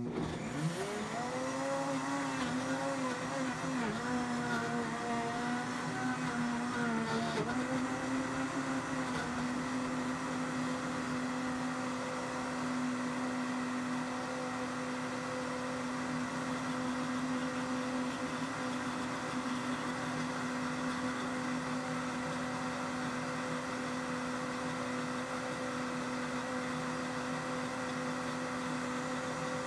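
Cleanblend 1800-watt commercial blender motor switched on and blending whole vegetables into soup. The pitch climbs as it spins up and wavers for the first several seconds while the chunks are pulled into the blades. Once the contents turn smooth, the pitch settles into a steady drone.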